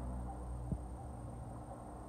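Steady low hum of the room with a few faint small clicks, the clearest about two-thirds of a second in, from handling a small screwdriver and iPhone parts.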